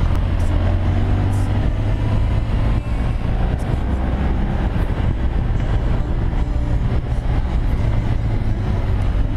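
BMW R1200 motorcycle's boxer-twin engine running steadily under way, with wind rush over the microphone.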